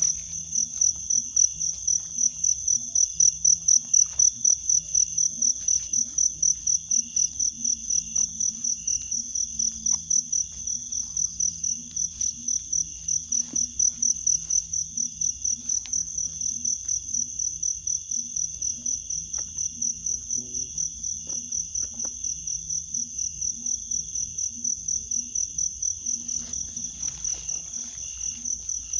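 An insect chirping steadily in a high, pulsing trill of about three pulses a second, over a lower stuttering pulse and a few faint clicks.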